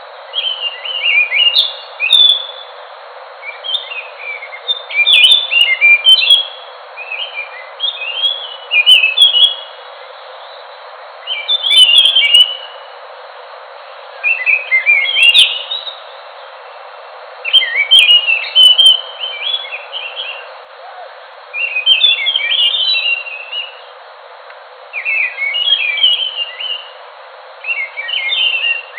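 Ground thrush (Geokichla) singing a run of quick, varied whistled phrases, each one or two seconds long, repeating every two to three seconds, over a steady hiss.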